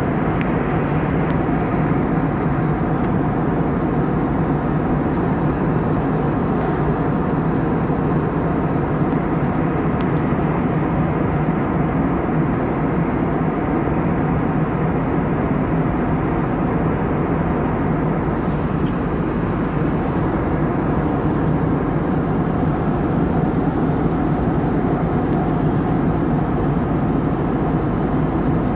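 Steady cabin noise of an aircraft in flight, heard from inside the cabin: an even rushing drone with a steady low hum, unchanging throughout.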